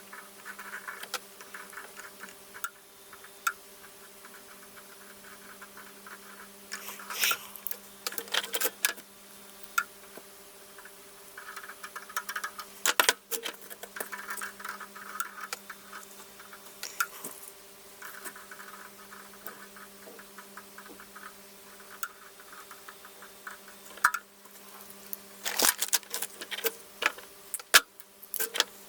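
Irregular scratching, clicking and light crackling as old solder is worked off the pads of an AM2 CPU socket with soldering tools, ready for reballing. A steady low hum runs underneath.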